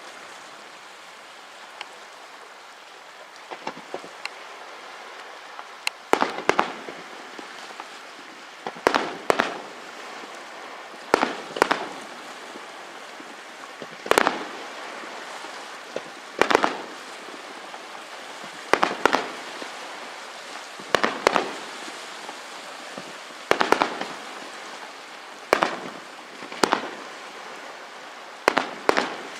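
Aerial firework shells bursting in loud, sharp bangs, often in close pairs, about every two to two and a half seconds from about six seconds in, each followed by a brief echo, over a steady hiss. Before that there are only faint pops.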